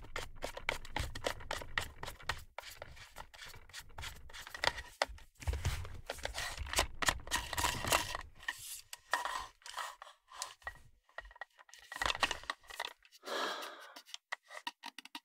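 Plastic twist-lock collar and threads of a Neewer NW-088 aluminium boom pole being unscrewed by hand, the ungreased cheap plastic threads grating in rapid scratchy clicks. The clicks run densely for about the first half, then come in shorter scrapes with pauses.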